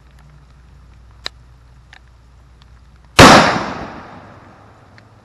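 One very loud blast from the shooting, cutting in sharply about three seconds in and dying away in a long echo over about a second and a half.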